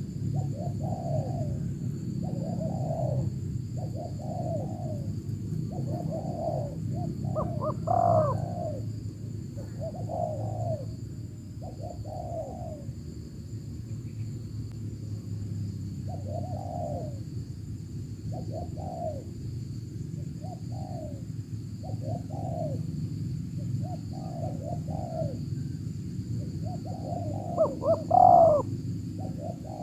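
Spotted doves cooing: a steady run of short, rounded coos, a phrase every second or so, with a louder, closer bird about eight seconds in and again near the end.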